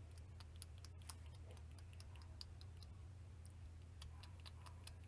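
Faint, irregular light clicks and ticks, a few a second, over a low steady hum.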